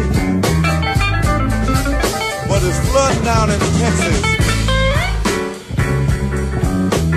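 Slow blues band recording in an instrumental stretch without vocals: a lead guitar playing bent, wavering notes over bass and drums.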